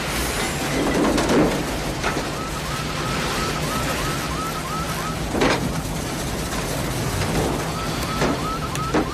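Film sound of a tornado chase: a steady roar of wind and vehicle noise with a few sharp debris hits. Through it a short electronic chirp repeats about three times a second, once from about two seconds in and again near the end.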